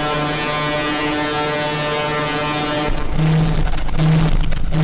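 Eurorack modular synthesizer playing harsh noise from a no-input feedback patch, an ErrorTron module sequenced by a Buchla array and fed into a Mutable Instruments Beads tuned down to tame the screeching. For about three seconds it holds a steady buzzing tone rich in overtones. It then breaks into a harsher, noisier texture, with a low hum stuttering on and off in short blocks.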